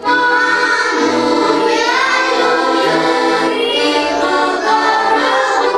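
An accordion playing a song while a group of young children sing along.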